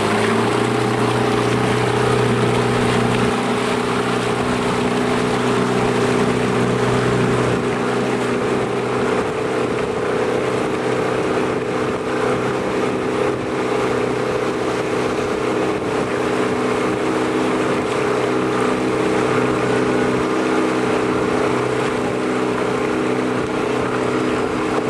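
Motorboat engine running steadily, heard from aboard the moving boat, a constant hum over the rush of water and wind.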